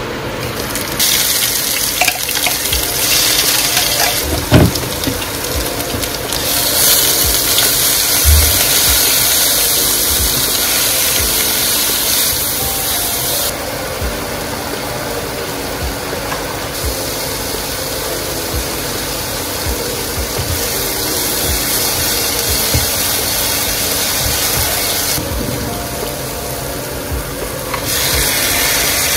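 Oil and blended green chilli paste sizzling in a frying pan, with a few knocks of a spatula against the pan. The sizzle changes in strength abruptly several times.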